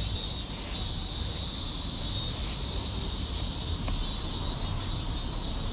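A chorus of summer insects shrilling steadily in the trees, a high hum that swells and fades about once a second, over a low rumble.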